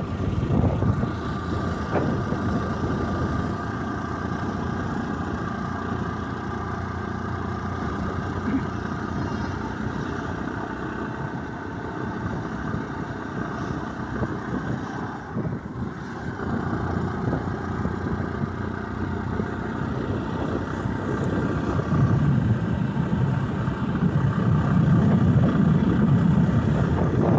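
Sport motorcycle engine running steadily while riding at about 40 km/h. Its steady tones sit over a rushing noise that grows louder near the end.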